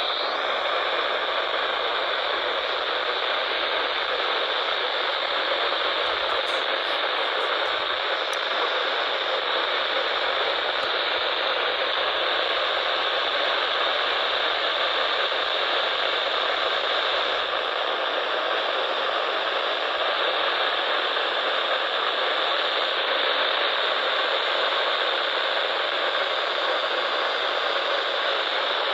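Steady radio static: an even hiss from a radio receiver with no voice on the channel.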